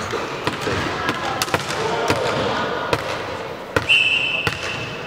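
Volleyball thumps and bounces on a hardwood gym floor, sharp knocks every so often with an echo from the hall, over faint voices. Near the fourth second a high steady shrill tone sounds for about a second.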